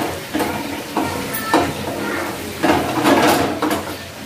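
Chilli chicken frying in a black non-stick pan, sizzling while a steel spoon stirs it, with repeated scrapes and knocks of the spoon against the pan.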